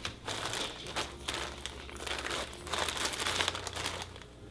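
Packets and spice containers rustling and crinkling as they are moved about while rummaging through a spice cupboard, in a string of irregular short bursts.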